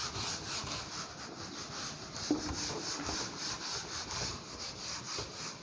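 An eraser wiping a marker whiteboard, rubbed back and forth in quick repeated strokes that make a rhythmic scrubbing swish.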